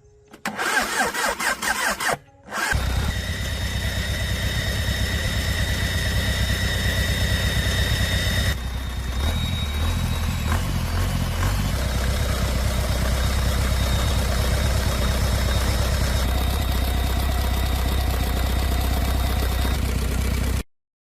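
Restored ZS1115 single-cylinder diesel engine being cranked, catching after about two and a half seconds, then running steadily with a deep, even beat. It cuts off suddenly near the end.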